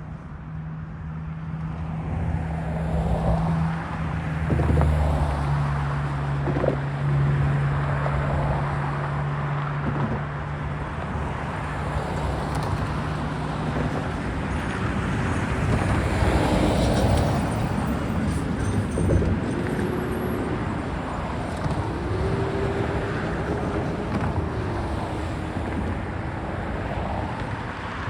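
Freight train passing at track side. For the first half a mid-train diesel locomotive's engine hum is heard over the rolling of the cars. After that only the double-stack cars roll by, with wheels clattering and brief wheel squeals near the end.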